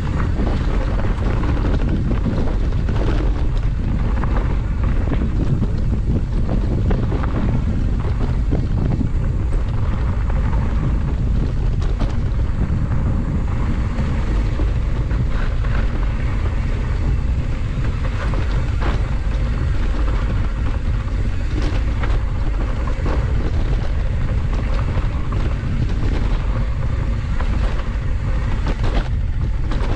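Wind buffeting the microphone over the rumble of a 27.5+ hardtail mountain bike's tyres on a rough dirt single track, with frequent small knocks and rattles as it rides over bumps.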